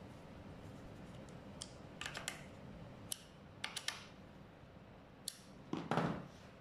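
Light metallic clicks and ticks of a screwdriver working screws into a scooter's aluminium light housing, in small clusters of two or three. Near the end comes a louder, brief rustle and knock as the wiring is handled.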